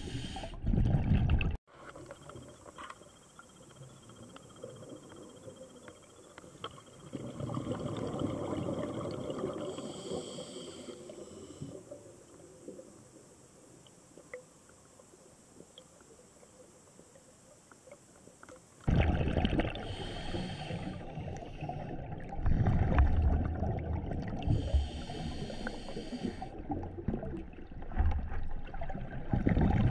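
Underwater sound of a scuba diver breathing through a regulator, heard through the camera's housing: a muffled bubbling rumble from exhaled bubbles, with short hissing inhalations every few seconds. It drops suddenly to a quieter stretch about two seconds in and comes back louder about nineteen seconds in.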